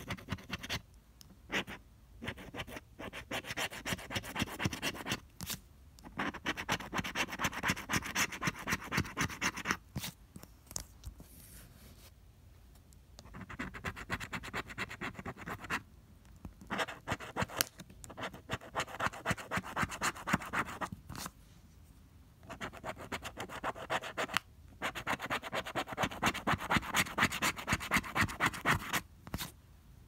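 Pink plastic scratcher scraping the coating off a lottery scratch-off ticket in runs of quick back-and-forth strokes, broken by short pauses.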